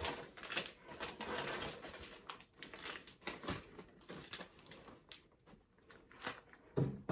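Soft plastic baby-wipe packets crinkling and rustling as they are handled, followed by scattered light clicks and knocks of a plastic basket being moved about.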